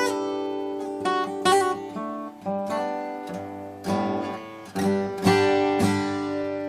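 Washburn Timbrewood WD-48S acoustic guitar being played in a slow run of strummed chords, each left to ring and fade before the next. It is being tried out after a new bone saddle and a general setup.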